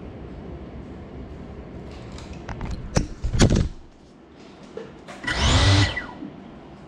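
A small FPV drone dropping and hitting a tile floor with sharp knocks about three seconds in. About two seconds later comes a short, loud mechanical whir whose pitch sweeps.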